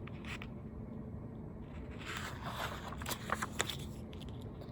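Faint paper rustling and a few soft handling noises from a picture book being handled between read lines, most noticeable around two and three and a half seconds in, over quiet room tone.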